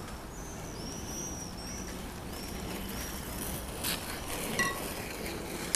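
Quiet outdoor background with a small bird chirping faintly in short, high, repeated notes, and two soft clicks near the end.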